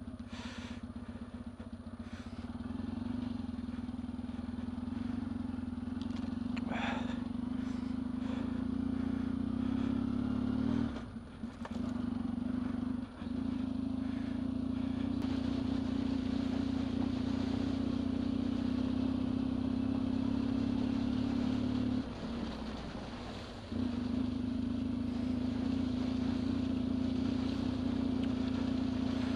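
Yamaha dual-sport motorcycle engine running at a steady pace on a muddy trail. The engine note drops away briefly twice, about eleven seconds in and again a little past twenty-two seconds.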